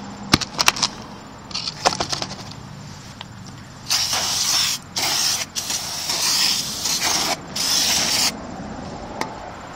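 Aerosol brake cleaner sprayed onto a new brake rotor in several long hissing bursts with short breaks, starting about four seconds in. Before the spraying there are a few light clicks and knocks.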